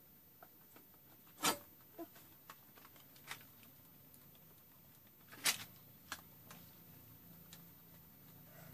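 A small wood cooking fire being fanned with a plastic sheet: a few scattered sharp papery flaps and crackles, the loudest about 1.5 s in and again about 5.5 s in.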